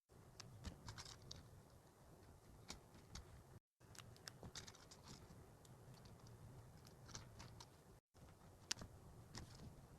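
Faint, irregular soft clicks and taps over a low steady hum, like small objects being handled close to the microphone. The sound drops out briefly twice, at about a third and about four-fifths of the way through.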